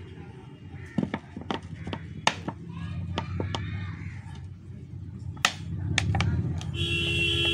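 Clicks and crackles of a clear plastic bottle being handled, tipped and shaken to get a baby cobra out, over a low engine rumble that grows louder. Near the end a steady horn-like tone starts and holds.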